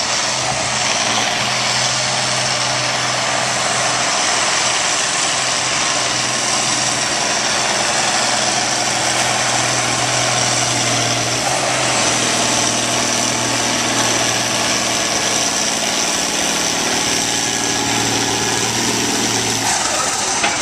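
International Harvester pulling tractor's engine running hard and steady under load while it drags a weight-transfer sled down the pulling track. The steady engine note falls away about a second before the end as the run finishes.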